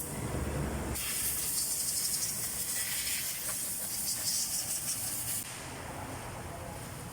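Steady hiss of a pressurised spray on the dismantled rear brake parts. It starts about a second in, then drops to a fainter hiss after about five seconds.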